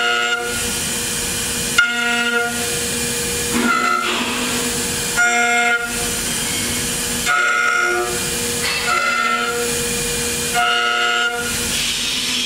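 HITECO spindle of a 5-axis CNC router running at high speed while a thin bit carves a wooden sculpture: a steady high-pitched whine over a hiss, its tone shifting in a regular pattern about every one and a half to two seconds.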